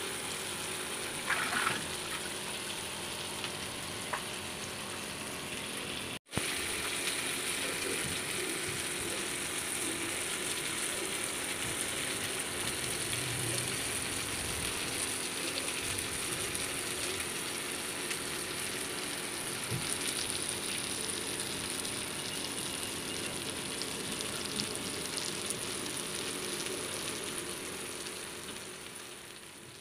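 Masala-coated fish pieces shallow-frying in oil on a flat pan: a steady sizzle that briefly cuts out about six seconds in.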